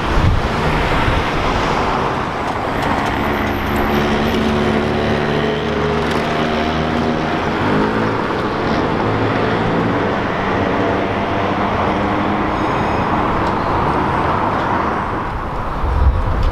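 Busy city street traffic: a steady wash of cars and buses passing, with one vehicle's engine hum standing out for several seconds in the middle and shifting in pitch partway through.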